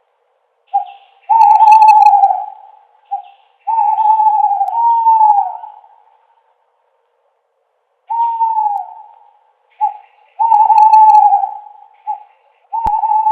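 Owl hooting in two phrases of mixed short and longer hoots, several of them falling in pitch at the end, with a pause of about two seconds between the phrases. A brief click sounds near the end.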